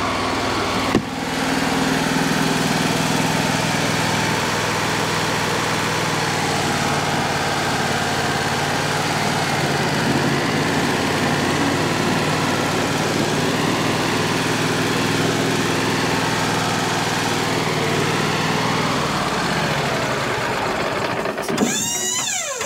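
Wood-Mizer LT35HD sawmill's engine running steadily, with a sharp knock about a second in. Near the end the engine sound cuts off and a brief sweeping sound follows.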